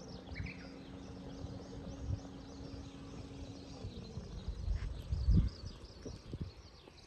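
Outdoor ambience with many small birds chirping over and over, high and thin, under a low uneven rumble. A steady low hum drops in pitch and fades out about four seconds in.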